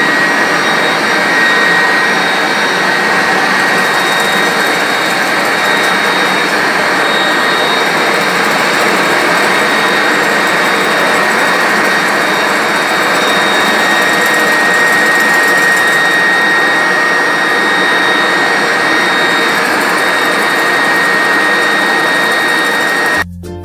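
Electric motor running steadily at full speed with a constant high-pitched whine over a loud rushing noise, like a vacuum cleaner motor; it cuts off abruptly near the end.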